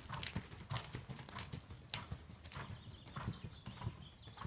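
Hoofbeats of a horse cantering on a sand arena: a steady, rhythmic run of dull thuds.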